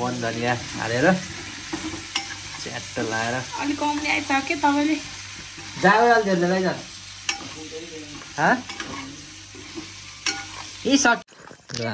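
A steady sizzling hiss with people's voices talking over it now and then.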